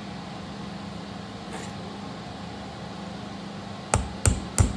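Hammer tapping a punch to drive a roll pin into a gear's shaft, three quick sharp taps about a second before the end, over a steady low hum.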